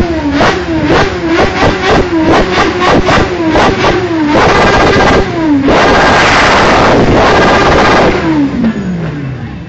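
Motorcycle engine revved in quick throttle blips, about four a second, then held at a loud high rev for a few seconds before its pitch falls away near the end.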